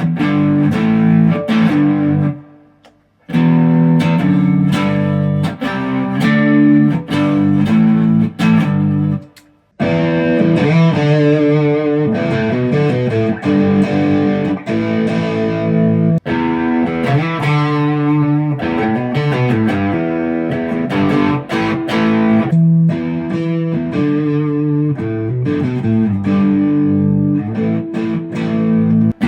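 ESP LTD EC-256 electric guitar played through an amplifier, chords struck again and again. It stops briefly twice, about three seconds and about ten seconds in.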